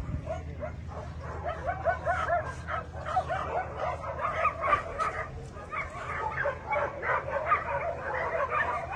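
A group of dogs barking and yipping together in many quick, short, overlapping calls over a steady low hum.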